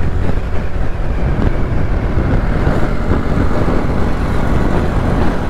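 TVS Raider 125's single-cylinder engine running steadily while riding at cruising speed, under an even rush of road and wind noise.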